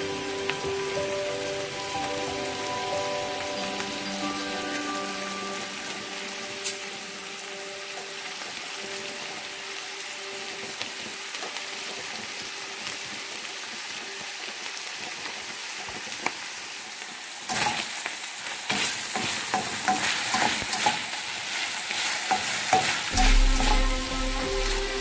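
Pork strips sizzling in hot oil in a stainless frying pan, a steady hiss. From about two-thirds of the way through, a spatula scrapes and clicks against the pan as the meat is stirred, and the sound gets louder.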